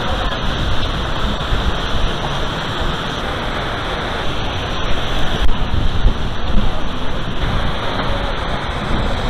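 Steady rushing noise of falling water, typical of a mini-golf course's artificial waterfall.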